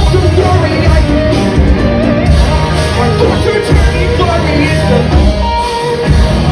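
A rock band playing live and loud, singing over guitars and a heavy low end, with a brief break in the music just before the end.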